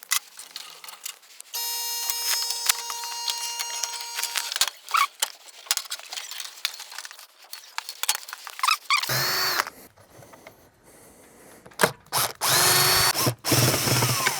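Power drill running in bursts: a steady whine for about three seconds, then two louder runs near the end, each spinning up with a rising whine, with scattered clicks of handling between.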